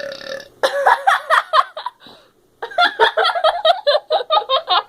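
A girl burps loudly after chugging soda: one steady, held burp at the start, followed by choppy, broken voice sounds and, about halfway through, a run of quick pulses, about five a second.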